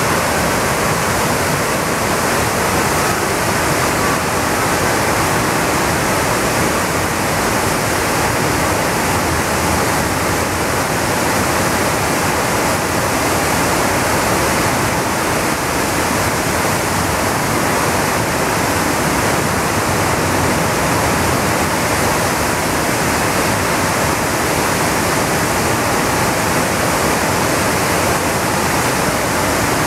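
The Arno in high spring flow pouring over the Pescaia di Santa Rosa, a low sloping river weir: a loud, steady, unbroken rush of falling water.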